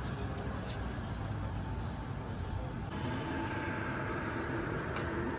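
City street ambience: a steady low rumble of traffic with a few short high chirps in the first half. After a change about three seconds in, faint distant voices come through.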